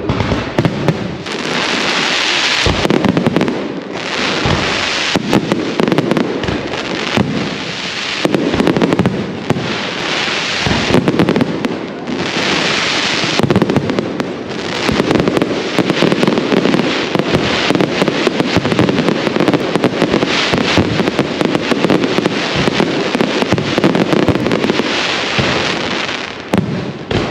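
Firecrackers and fireworks going off nonstop in a dense, rapid crackle of loud bangs, with bursts of hissing fizz every few seconds; loud enough to leave the ears ringing.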